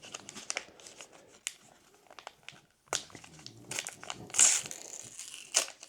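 Foil booster pack wrapper crinkling and being torn open, with scattered sharp crackles and two louder rustling rips in the last couple of seconds.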